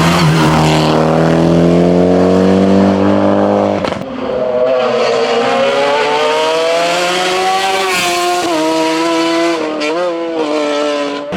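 Hillclimb race car engine at full throttle, its pitch climbing steadily through a long pull. The sound breaks off suddenly about four seconds in and picks up again with another long rising pull, then several quick dips in pitch near the end as the driver shifts or lifts.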